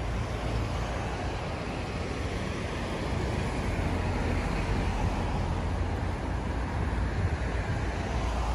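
Steady wash of waves breaking on a rocky shore, with wind rumbling on the microphone.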